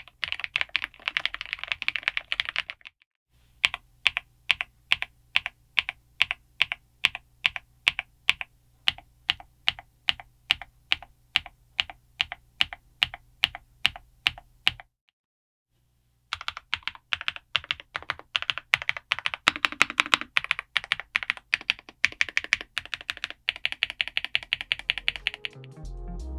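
Redragon Wyvern K761 Pro gasket-mount mechanical keyboard with Mint Mambo linear switches and PBT keycaps being typed on: a burst of fast typing, then a long run of single key presses at an even pace of about three a second, a short pause, and fast typing again. Music comes in near the end.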